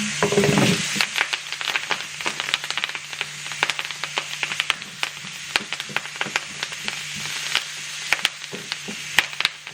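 Salmon frying in butter on a griddle, sizzling with frequent irregular crackles and pops over a steady low hum.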